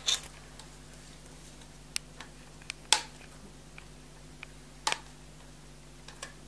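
Wire cutters snipping through the insulated wires of a computer power supply: several sharp clicks, the loudest about three seconds in and another near five seconds.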